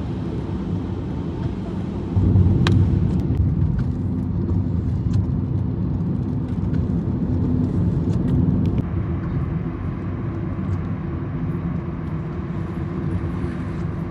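Steady road and tyre noise with engine hum, heard from inside the cabin of a moving car, growing louder about two seconds in. A few light ticks sound over it.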